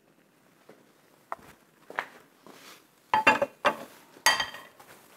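A few light knocks and clinks of a wooden spoon against a clay bowl while crushed tomato is scooped out, the loudest bunched a little after halfway, some with a short ringing tone.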